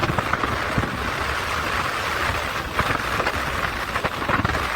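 Motorcycle riding slowly on the road, its engine and road noise a steady rumble mixed with wind on the microphone.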